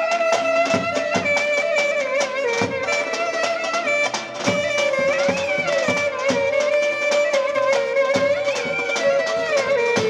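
Roman havası dance music from a wedding band: a sliding, ornamented lead melody held over a busy davul drum beat.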